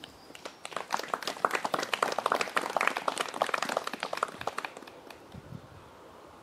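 Small audience applauding: hand claps start about half a second in and die away near the five-second mark.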